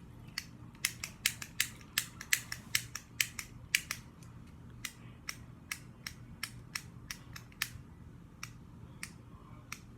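Fidget cube's click-face buttons being pressed over and over: a run of sharp plastic clicks, about two or three a second, thinning out near the end.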